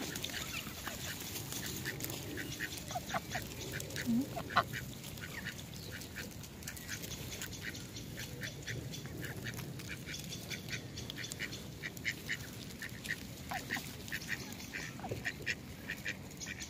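White domestic duck quacking in many short, quick calls.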